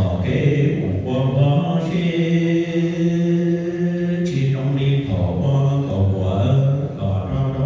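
A man's voice chanting Hmong lus txaj, a traditional sung verse, in long held notes that step between a few low pitches.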